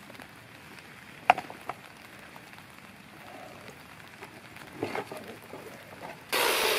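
A few sharp clicks and knocks from a battery chainsaw being handled and lifted out of a backpack, against quiet background. Shortly before the end a loud, dense, steady sound cuts in abruptly.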